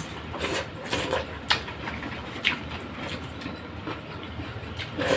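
A person eating pork sinigang with rice: chewing with scattered short clicks and taps, and a louder noisy burst near the end.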